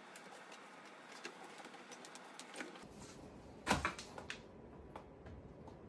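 Quiet handling of a Bambu Lab AMS unit's plastic housing, with one sharp knock a little past halfway and a few fainter clicks after it.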